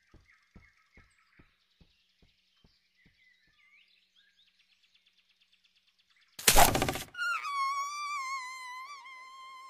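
Soft forest ambience with faint bird-like chirps and a light, fairly regular ticking. About six seconds in comes a sudden loud burst, followed by a long wavering whistle-like tone that slowly fades.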